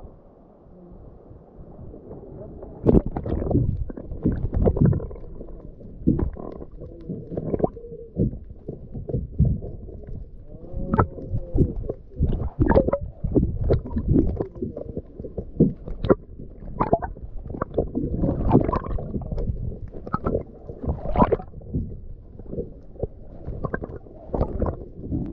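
Muffled underwater gurgling and bubbling from a camera held underwater, with irregular dull knocks and clicks. It is fairly quiet at first, then grows louder and busier about three seconds in.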